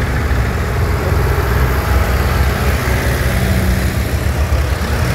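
Engines of vintage farm tractors running at low revs as they drive slowly past one after another, a steady low engine drone.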